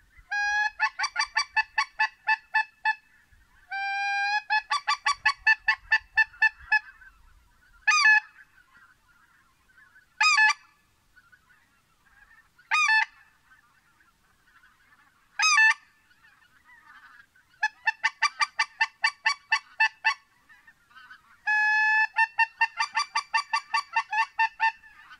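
Goose honking, loud and close: fast runs of short honks, several opening with a held note, and in the middle single honks about every two and a half seconds.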